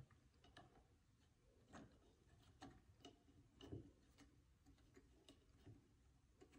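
Near silence with faint, irregular clicks and taps of a plastic fitting being handled and worked onto a small pump.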